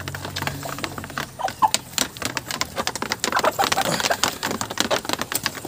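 Hens pecking feed from a wooden trough: rapid, irregular tapping of beaks on the wood and grain, with a few short clucks.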